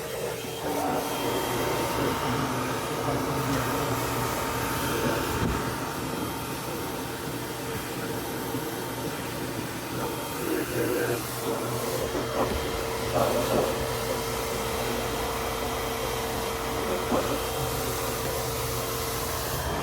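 Refrigerator running after being powered back on: the newly replaced evaporator fan blows with its cover off, a steady whir with a constant hum. A few light knocks come past the middle.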